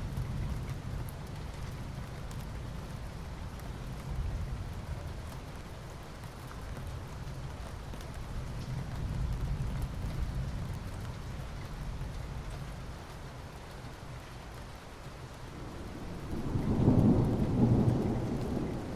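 Rain falling steadily on asphalt, a constant noisy wash with a low rumble under it. Near the end a deeper rumble swells up loudly and fades.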